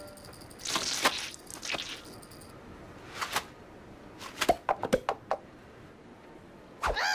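Cartoon sound effects: a short rushing noise, then a scatter of sharp clicks and knocks, and a character's wavering vocal cry starting near the end.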